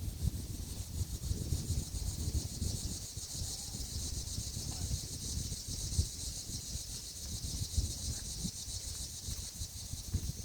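Steady high-pitched insect chorus, with uneven gusts of wind buffeting the microphone underneath.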